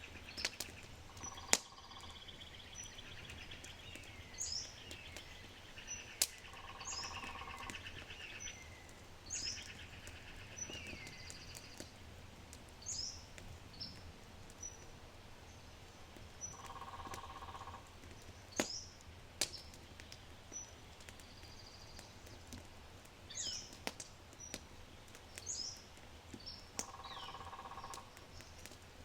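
Several birds singing in short rising chirps and fast trills, with a lower, rounder call repeated about every ten seconds. Sharp pops and crackles from a low oak fire break in now and then, the loudest about a second and a half in, over a steady low rumble.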